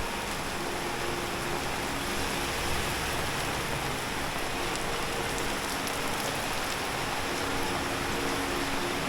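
Steady hiss of rain on a street, with a faint engine hum coming and going underneath.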